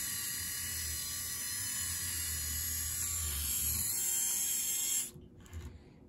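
Small servo motors of a UBTECH UKIT robot model whirring steadily under program control, then cutting off suddenly about five seconds in.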